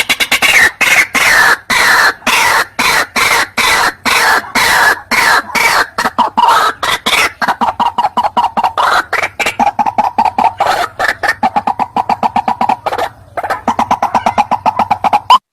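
White-breasted waterhen (ruak-ruak) calling as a bird-lure recording: a long, loud run of rapidly repeated call notes, several a second, with a brief pause about 13 seconds in.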